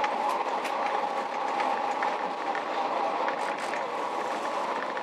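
Running noise inside a Kashima Rinkai Railway diesel railcar under way: a steady rumble with a steady whine and scattered sharp clicks from the wheels on the track.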